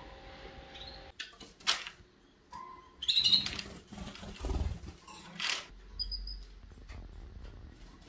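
Canaries in their cage: a few short, high chirps and brief bursts of wing flapping and rustling, with some soft knocks.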